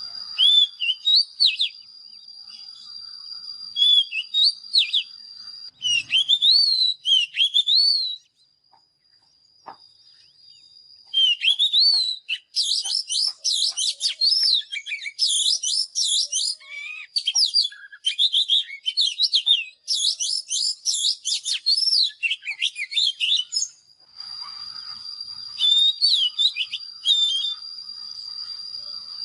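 Oriental magpie-robin singing: varied whistled phrases of rising and falling notes, with a short lull about eight seconds in and then a fast, dense run of song. A steady high tone sounds under the song at the start and end.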